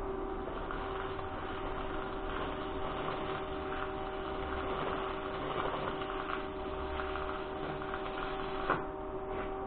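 Electric arc welding on a steel rock-drill auger: a steady crackle and sizzle of the arc over a constant hum, with one sharp click near the end.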